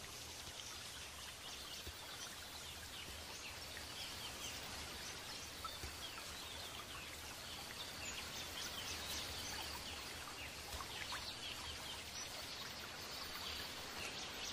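Natural forest ambience: many short bird calls scattered over a steady, faint background hiss.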